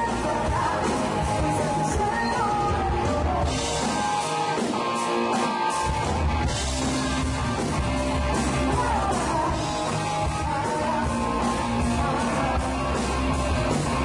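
Live rock band playing, with a female lead vocal over electric guitars, bass and drums, heard from the audience. About four seconds in the bass drops out for roughly two seconds before the full band comes back in.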